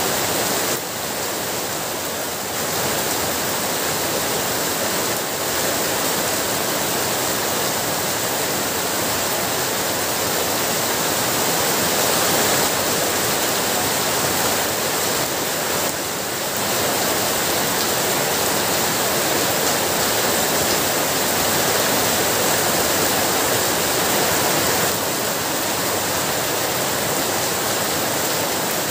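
Heavy rain falling: a dense, steady hiss of countless drops, easing very slightly now and then.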